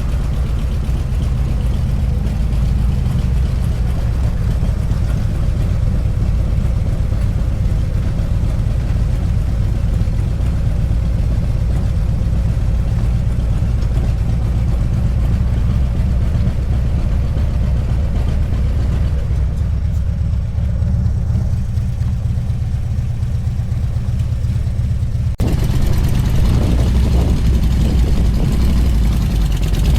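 Motorcycle engine running steadily at highway speed, with wind noise over the microphone. About 25 seconds in the sound steps abruptly louder and brighter.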